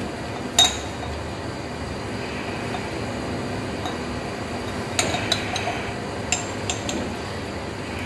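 Sharp clinks and taps of a glass measuring beaker and brass hose fittings being handled: one about half a second in, then a cluster of several toward the end, over a steady background hum.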